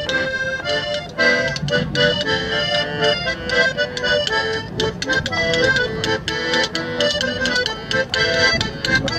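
Lively folk dance tune led by accordion, with a steady beat.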